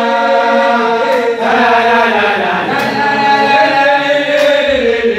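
Men's voices singing a football team song together as a chant, loud and continuous, with long held notes that slide between pitches.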